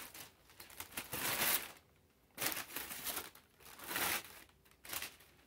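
Tissue paper in a sneaker box crinkling and rustling as hands pull it aside, in several bursts of a second or so, the loudest about a second in.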